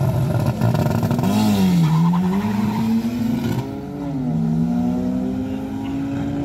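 Car engine pulling hard under acceleration, its pitch climbing steadily and dropping sharply twice, about one and a half and four seconds in, as it shifts up through the gears.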